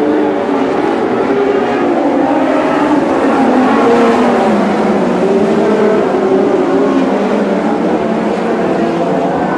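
A pack of Lightning Sprints, small winged dirt-track sprint cars, racing together with several engines revving at once, their pitches wavering up and down as the drivers work the throttle through the turns.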